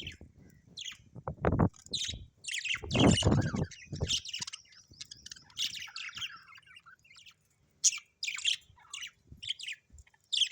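Budgerigars chirping and chattering in short, high calls throughout, with a burst of low thuds in the first four seconds.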